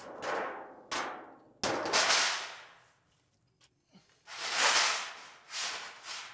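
A shallow metal spill pan scraping across an asphalt driveway as it is pushed along in about five strokes.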